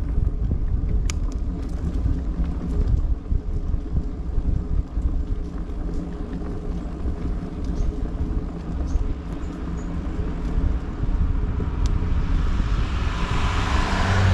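Steady low rumble of a running motor vehicle. Over the last couple of seconds a rushing hiss swells up.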